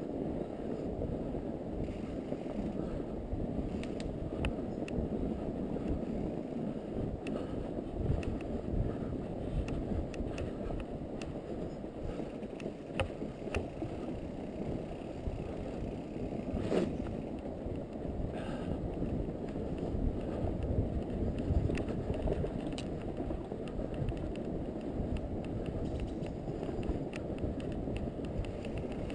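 Fat bike being ridden through snow: a steady low rumble from the rolling ride, with scattered clicks and rattles and one sharper click about halfway through.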